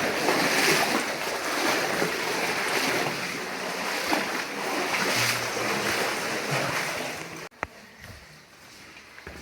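Water splashing and sloshing in uneven surges as cavers crawl through a shallow water-filled cave passage; it cuts off abruptly near the end, leaving a much quieter background.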